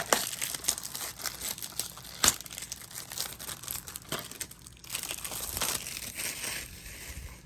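Plastic shrink-wrap being torn and peeled off a DVD case, crinkling and crackling, with one sharper crack about two seconds in.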